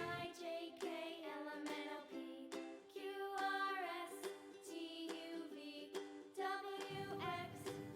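Quiet background music in a light children's style, a run of short pitched notes.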